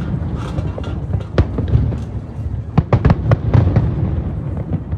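Aerial fireworks going off in a rapid volley: many sharp cracks, clustered about a second and a half in and again around three seconds, over a continuous low rumble of bursts.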